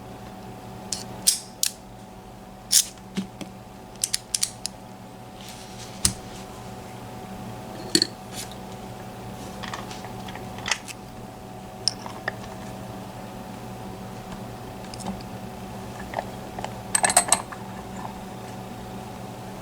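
Scattered sharp metallic clicks and taps from a Mul-T-Lock MT5+ lock cylinder and its key being handled, with a quick run of clicks near the end, over a steady low electrical hum.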